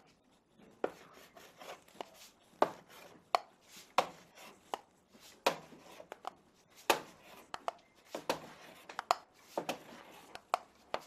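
Block of ski paraffin wax rubbed onto a cross-country ski's plastic base, with irregular sharp knocks and short scrapes as the block strikes and drags across the base.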